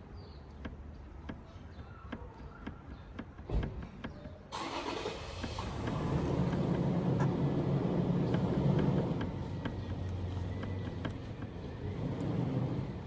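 Road and running noise inside a Toyota RAV4 (XA50) cabin, with scattered light knocks that the owner traces to the panoramic sunroof. The noise jumps up suddenly about four and a half seconds in and stays loud, easing a little near the end.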